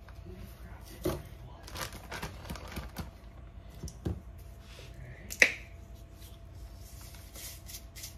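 Plastic zip-top bag rustling and plastic containers clicking as cornstarch and a spice are poured and shaken into a bag of flour, with one sharp click about five and a half seconds in.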